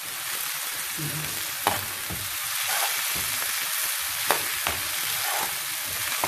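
Chopped onion, green onion and tomato sizzling in oil in a nonstick frying pan while being lightly sautéed, stirred with a spatula that gives a few sharp taps and scrapes against the pan.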